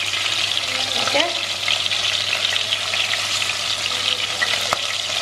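Chicken pieces searing in hot oil in a cast iron pot, a steady sizzle and crackle as they go in seasoned side down to brown. A single light click sounds near the end.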